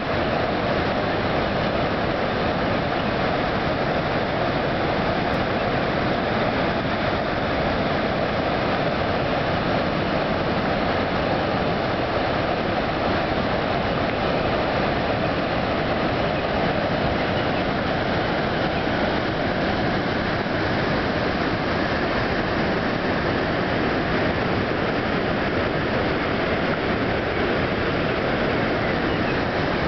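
A large waterfall's rushing water: a dense, steady noise with no breaks.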